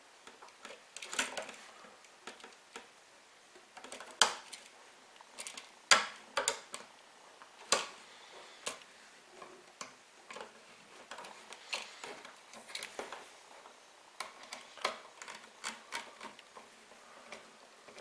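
Scattered light clicks and taps, irregularly spaced, from hands working a GFCI outlet and bending its copper hot wire onto the brass terminal screw.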